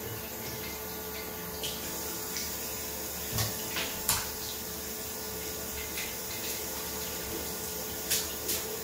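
Water running steadily from a bathroom basin tap into the sink, splashing over hands that rinse the plug stopper, with a few brief light clicks.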